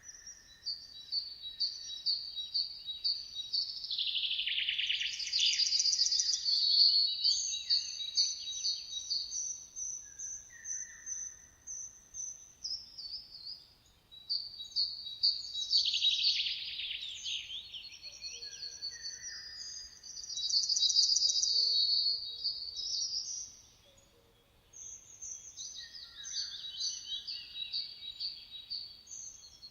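Several songbirds chirping and singing: bursts of high, rapid trilled and repeated phrases that come and go, with two short lulls.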